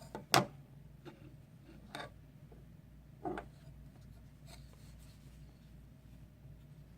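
Spring-assisted folding pocket knife: one sharp click about a third of a second in, then a few short scraping strokes as the blade is tried for sharpness. It is not the sharpest.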